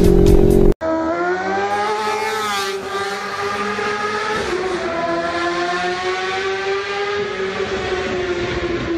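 After under a second of motorcycle riding sound with music, which cuts off abruptly, a racing-engine sound effect held at high, fairly steady revs, its pitch wavering slightly, with a falling whoosh about two to three seconds in.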